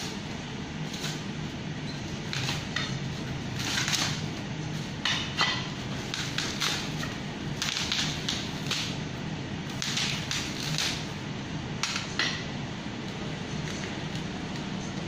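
Black plastic wrap crinkling and tearing in irregular bursts as it is cut and peeled off a bicycle rim, over a steady low hum.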